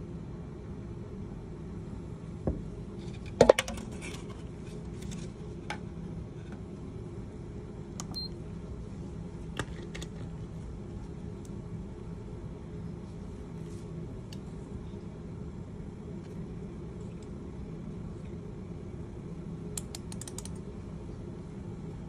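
Scattered small clicks and taps from a reagent bottle and a plastic weigh boat being handled at an analytical balance during weighing, the sharpest cluster about three and a half seconds in and another near the end, over a steady low hum.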